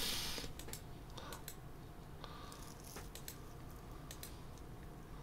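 Faint, scattered clicks of a computer mouse, several spread across a few seconds, over quiet room tone.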